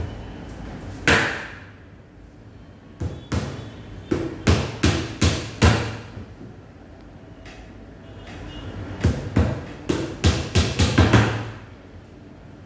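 Hammer driving small nails into the thin back panel of an IKEA Billy bookcase: one strike about a second in, then two runs of quick taps, two to three a second, with a pause of a few seconds between them.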